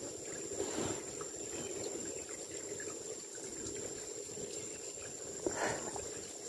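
Flowing water of a small creek trickling steadily, with a thin steady high tone above it and a brief knock or rustle about five and a half seconds in.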